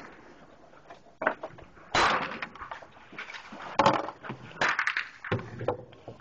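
About five pistol shots at uneven intervals, each a sharp bang with a short echo off the range's roof.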